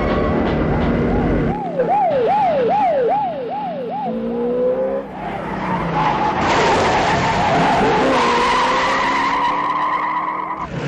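A police siren wails in fast rising-and-falling sweeps, then a car engine revs and tyres squeal in a long skid through the second half.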